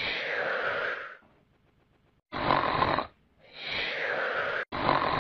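Snoring: a buzzy snore with a steady tone alternating with a breath that falls in pitch, about two full cycles, each breath roughly a second long.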